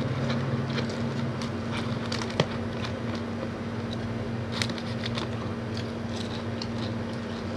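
Eating sounds: chewing and small crackles and clicks as fried chicken is picked from paper boxes and bitten. Under them runs a steady low electrical hum.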